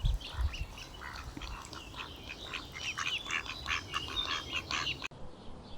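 A flock of domestic ducks quacking, many short calls overlapping one another; they stop abruptly about five seconds in.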